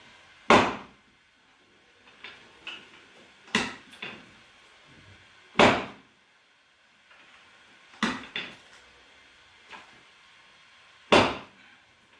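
Sharp knocks during chiropractic adjustments: five loud ones a few seconds apart, with fainter knocks in between.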